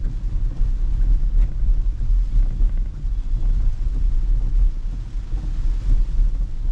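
Steady low rumble inside a Tesla's cabin while driving through a heavy rainstorm: rain on the roof and glass, and tyres on the wet road.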